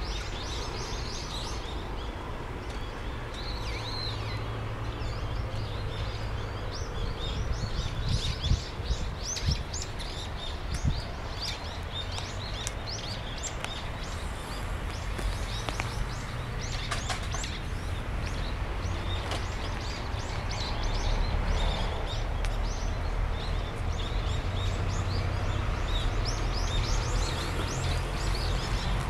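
Many small birds chirping and twittering over a steady low rumble, with a few brief knocks about eight to eleven seconds in.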